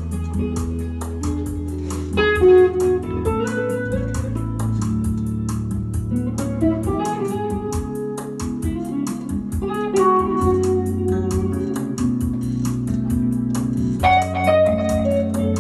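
Live instrumental gospel music: a hollow-body electric guitar plays the melody over keyboard and bass, with a steady beat.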